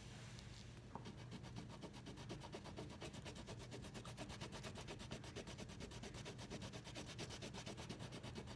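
Faint colored pencil rubbing on paper in quick, even back-and-forth strokes, several a second, as a picture is coloured in.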